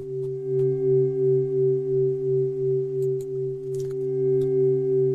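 A sustained meditation drone of a few steady pure tones held together, pulsing gently in loudness about two to three times a second.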